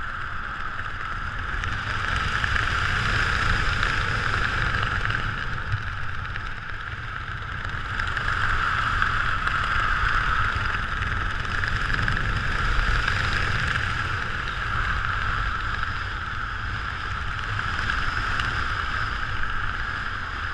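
Wind rushing over a parachutist's helmet-camera microphone during a descent under an open canopy: a steady rush with an uneven low rumble.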